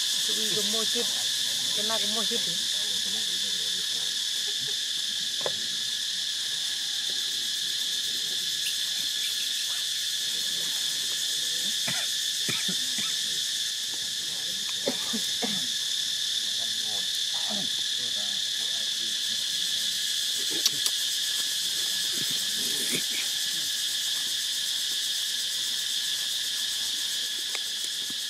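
Steady, shrill chorus of insects buzzing in dry forest, unbroken throughout. Faint scattered clicks and rustles sound over it now and then.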